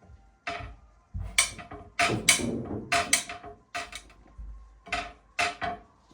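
Dishes and utensils clinking and knocking together, about a dozen sharp clinks, several with a short ringing tone.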